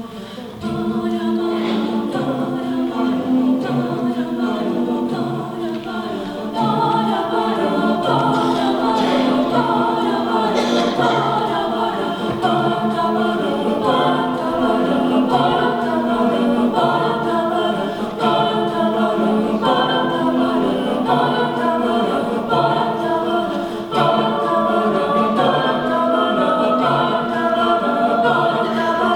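High school madrigal choir singing a cappella in several parts, holding long chords. It gets louder about a second in.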